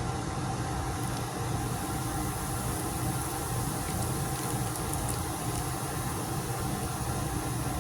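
Home-made volcano's eruption mix fizzing after water and popping crystals go in: a steady, faint hiss, not loud. A constant low mechanical hum runs beneath it.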